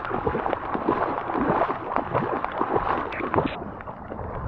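Legs wading through deep floodwater, the water sloshing and splashing irregularly with each movement.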